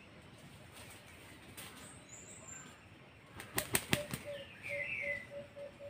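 Quiet forest ambience. About three and a half seconds in comes a quick run of four or five sharp flaps. A steady pulsing buzz then sets in, with a short bird chirp over it.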